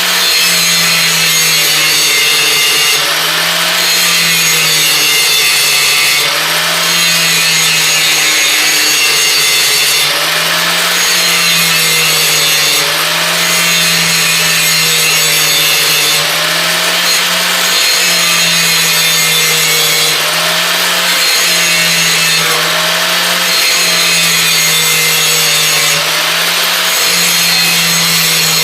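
Electric grinder running continuously while grinding the edge of a steel brush hog mower blade to sharpen it. The motor's pitch sags slightly and recovers every few seconds as the wheel is pressed on and eased off in back-and-forth passes, over a steady hiss of grinding metal.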